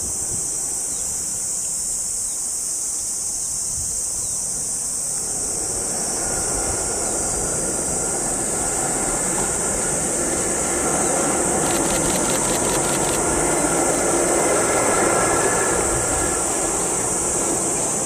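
Container freight train hauled by an electric locomotive passing at a distance, its rolling rumble and faint whine building from about five seconds in, with a brief run of rapid clicks near the middle. A steady high insect buzz runs underneath.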